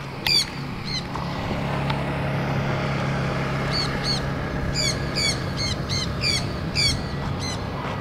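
Sun conures screeching: short, harsh, downward-bending calls. There are two near the start, then a quick run of about nine from about four seconds in, over a steady low hum.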